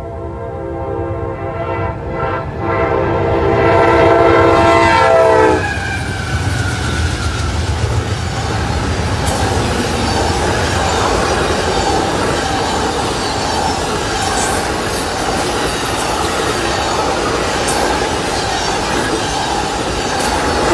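CSX diesel locomotive's air horn sounding a chord as it approaches at speed, dropping in pitch and cutting off as the engine passes about five and a half seconds in. Then the steady rush and clatter of Amtrak Superliner bilevel passenger cars rolling by at speed over the rails.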